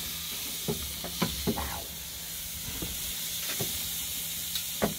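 Steaks sizzling on a hot charcoal grill, a steady hiss, with about six short clicks of metal tongs against the grate and meat as the steaks are turned.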